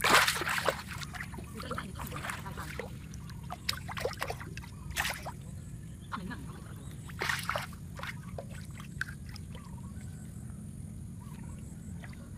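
A hooked fish thrashing at the surface close to the bank, with one hard splash at the start and a few shorter splashes around two, five and seven seconds in.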